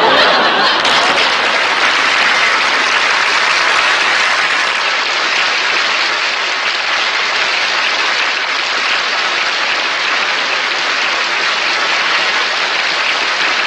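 Sitcom studio audience applause at the close of the episode: dense, even clapping that holds steady, without a break.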